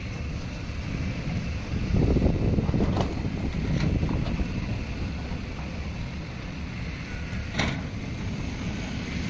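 Heavy earthmoving machine's diesel engine running with a steady low rumble, swelling louder about two seconds in, with a few short sharp knocks, the loudest near the end.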